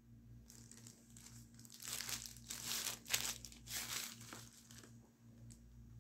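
Thin plastic packaging sleeve crinkling and rustling as a tablet is slid out of it, in a run of rustles from about two seconds in until past four seconds.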